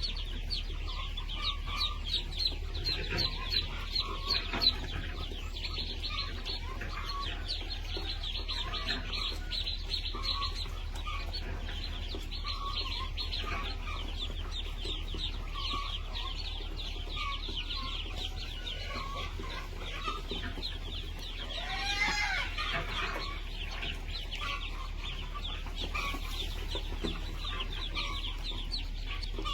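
A flock of chickens clucking and calling nonstop, with a dense stream of short high-pitched peeps over it. One louder, bending call stands out about three-quarters of the way through.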